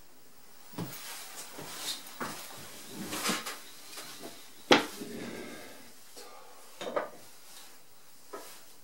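Woodcarving tools handled on a wooden workbench: scattered light clicks and knocks, with one sharp wooden knock about halfway through.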